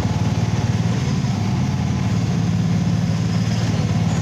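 A vehicle's engine running steadily: a low, even hum with a fast regular pulse.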